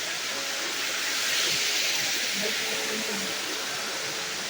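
Steady hiss of rushing water at a waterfall, swelling slightly about a second and a half in.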